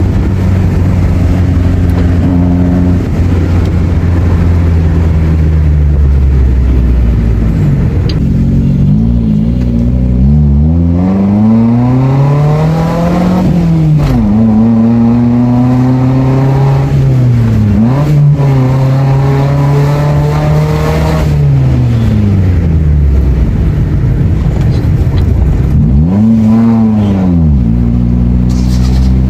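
Maruti Suzuki Zen engine through a modified aftermarket exhaust and changed muffler, driving on the road: the revs climb and drop again several times, with a steady engine note at the start and near the end.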